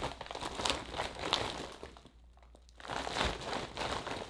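Large clear plastic bag of cannabis buds crinkling as it is handled, in two spells with a short pause about two seconds in.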